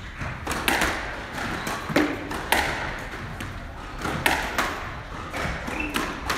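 Squash ball being hit back and forth in a rally: sharp smacks of rackets striking the ball and the ball hitting the court walls, about one every second, with short shoe squeaks on the court floor between them.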